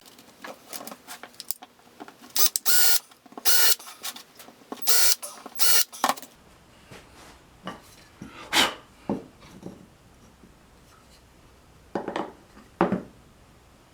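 Woodworking shop sounds: a run of short scraping, rasping strokes on wood, then a few sharp knocks of wooden pieces being handled.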